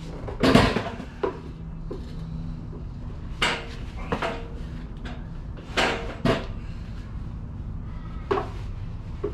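Irregular metal clanks and knocks from metal parts or tools being handled in a workshop, about eight of them, the loudest about half a second in, some leaving a short ring.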